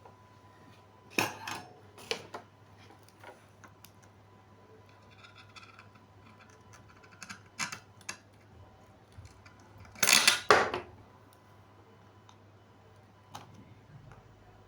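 Small hard parts of an LED light and its circuit board being handled on a work surface: scattered clicks and clatters, the loudest cluster about ten seconds in.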